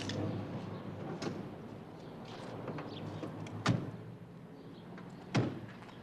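Two car doors of a Volkswagen Beetle slammed shut, one after the other about one and a half seconds apart.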